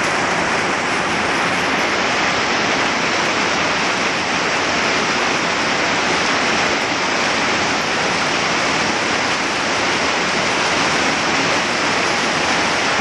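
Heavy rain falling, a loud, steady, dense hiss.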